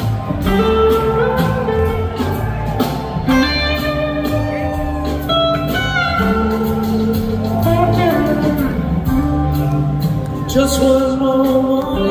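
Live blues-rock band playing, led by electric guitar over keyboards and drums.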